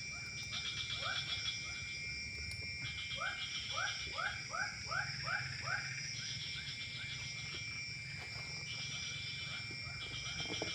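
Swampside dusk chorus: a steady high insect drone with pulsing trills, and a run of short rising calls from an animal, about three a second, that crowd together in the middle and then thin out.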